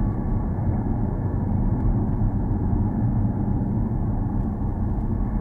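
Steady tyre and road noise inside the cabin of a Tesla Model X Plaid driving on city streets.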